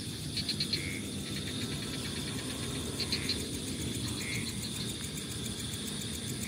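Crickets chirping at night: a steady high trill, with short clusters of three or four chirps every few seconds.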